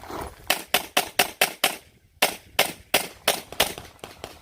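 Handgun fired in rapid strings: about six quick shots, a brief pause about two seconds in, then about six more.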